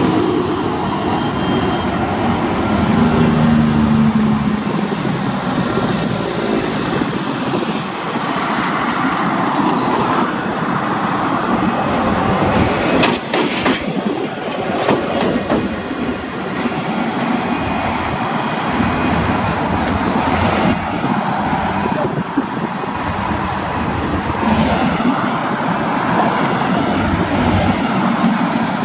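KiwiRail DFT-class diesel-electric locomotive rolling slowly past at close range, its engine running steadily throughout. A few sharp clicks come from the wheels on the track about halfway through, as it passes closest.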